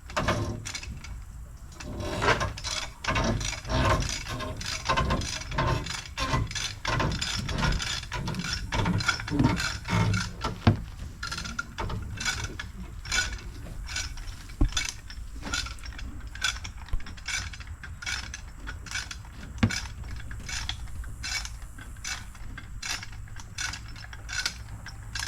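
Hand-cranked come-along cable puller ratcheting, a long run of quick clicks with short pauses.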